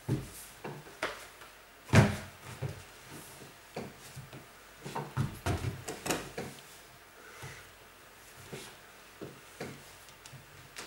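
Irregular knocks, bumps and clatter of things being handled in a small room, with the loudest knock about two seconds in and a busy run of knocks a little past halfway.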